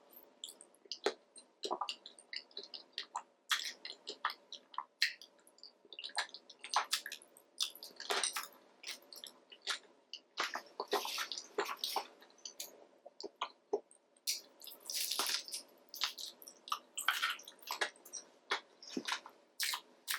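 Close-miked wet eating sounds from a seafood boil: squishy chewing and sucking of sauce-coated seafood, with many short, irregular wet clicks and smacks.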